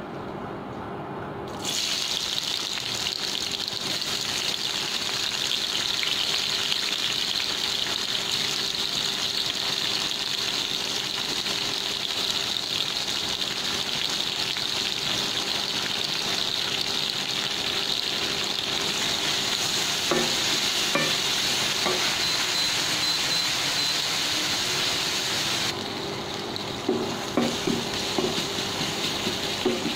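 Sliced onions dropped into hot oil in a steel kadai start sizzling suddenly about two seconds in, a steady loud hiss as they fry. Near the end the sizzle drops and a wooden spatula stirring the onions knocks against the pan several times.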